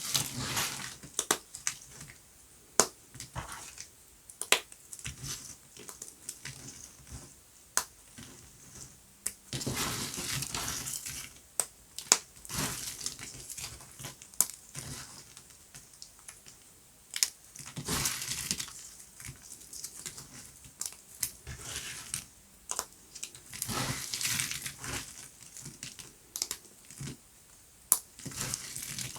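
Dry, hard soap being cut and crushed: bursts of crunching and crumbling a second or two long, with many sharp cracks and snaps in between.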